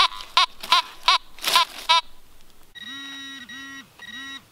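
Fisher F19 metal detector sounding target tones as the coil passes over a buried target: five short pitched chirps in the first two seconds, then three longer, steady, lower tones.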